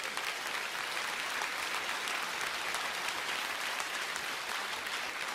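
A congregation applauding steadily: many hands clapping together.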